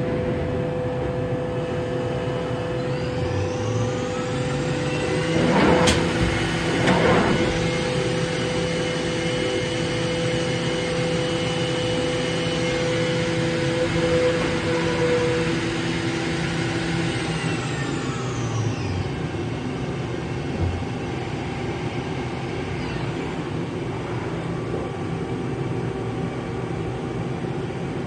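Okuma MA50HB horizontal machining center's spindle spinning up with a rising whine a few seconds in, running at steady speed, then winding down with a falling whine about two-thirds through, over the machine's steady hum. A sharp click and two short bursts of noise come just after it reaches speed.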